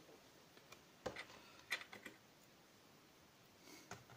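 Faint light clicks and taps of small laptop parts being handled by hand: a few scattered about a second to two seconds in, and a couple more near the end, otherwise near silence.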